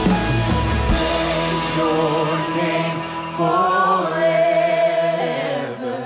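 Live worship band music with a congregation singing: acoustic guitar, cello, keys and drums. The drums and low end fall away in the first couple of seconds, leaving held chords under the voices, and the music dips briefly at the very end.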